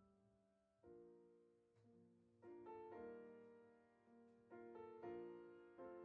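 Quiet background piano music: soft chords struck about once a second, each ringing and fading, growing louder a couple of seconds in.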